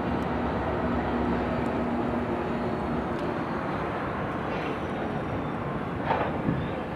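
Distant diesel locomotives of a CSX freight train, an AC44CW and an SD70MAC, running as the train pulls through town: a steady low rumble with a hum that fades about three seconds in. A brief louder swell comes a little after six seconds.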